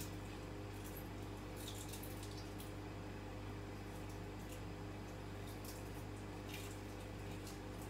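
A steady machine hum, with faint light clicks and taps of small things being handled at a kitchen counter scattered through it.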